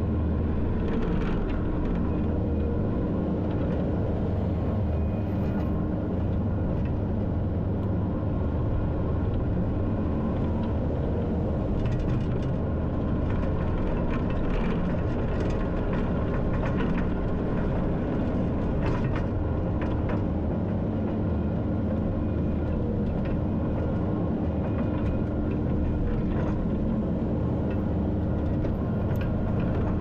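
Skid steer engine running steadily with a constant low rumble, with scattered knocks and clatter through it.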